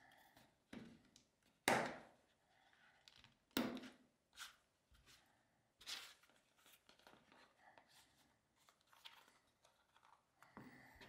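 Leather card wallet being handled: soft rubbing and several sharp taps and clicks as it is folded, turned over and cards are slid in, the loudest about two seconds in.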